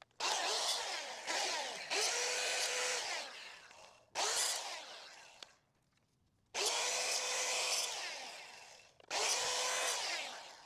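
Electric sliding miter saw cutting bamboo poles: the motor starts up with a steady hum and the blade rasps through the cane, about four separate cuts, each fading as the blade spins down.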